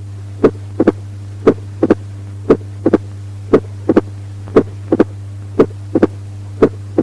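Heart sounds of mitral stenosis at about one cycle a second: a single first heart sound, then a close double sound, the second heart sound followed within a split second by a sharp opening snap. A steady low hum runs underneath.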